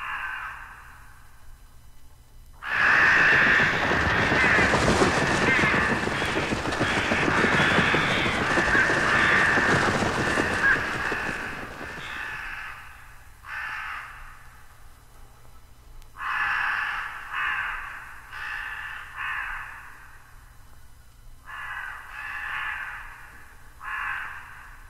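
Crows cawing in short, repeated calls that come in groups of several at a time. From about three seconds in until about twelve seconds in, a loud rushing noise drowns them out.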